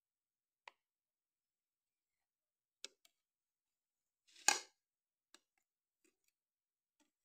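Kitchen knife cutting a soft cake and knocking against the plate beneath it: a few faint clicks, and one louder short scrape about four and a half seconds in as the blade slides under a slice.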